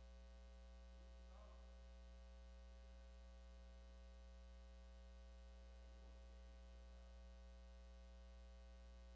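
Near silence: a steady electrical mains hum in the audio feed.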